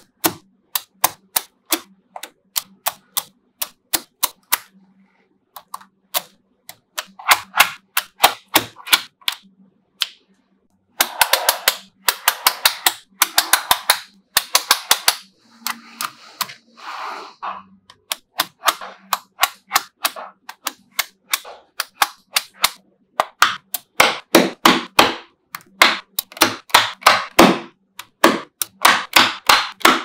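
Small neodymium magnetic balls clicking sharply as they snap together and onto a magnet-ball build. Single clicks come a few a second, broken by stretches of fast, dense clicking.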